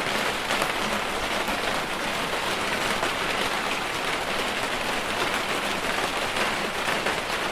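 Steady rain falling on surfaces outside a house, an even dense patter with no individual drops standing out.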